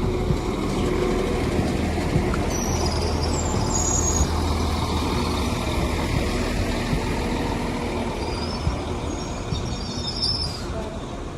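Class 195 diesel multiple unit running at the platform, with a steady low engine hum throughout. Brief faint high-pitched squeals come twice, about three seconds in and again near the end.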